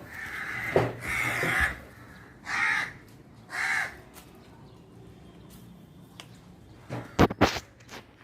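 A crow cawing, three or four harsh calls in the first four seconds. A few sharp knocks follow near the end.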